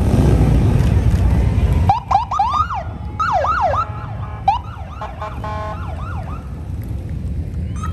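Wind buffeting the microphone for about two seconds, then police motorcycle sirens chirping in a quick series of short rising-and-falling whoops, with a brief pulsing tone partway through.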